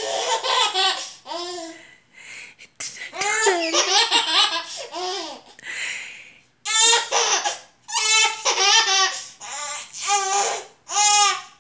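A baby laughing in repeated high-pitched bouts of belly laughter, about six bursts with short pauses between them and a breathy gasp about six seconds in.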